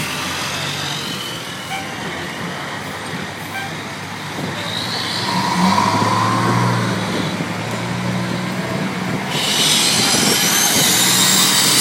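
Fire engines passing one after another at slow speed, their diesel engines running. About nine seconds in a hiss with a rising high whine sets in and the sound grows louder as the next truck comes close.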